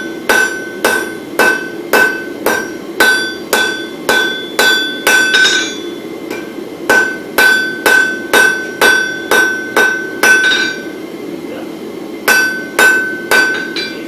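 Hand hammer forging a hot bar of wootz crucible steel on an anvil, about two blows a second, each strike leaving a short clear ring. The hammering stops twice for a second or so, around the middle and again near the end.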